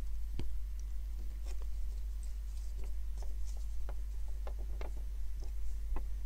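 A steady low hum with scattered faint clicks and taps, the clearest about half a second in and a small cluster about four and a half to five seconds in.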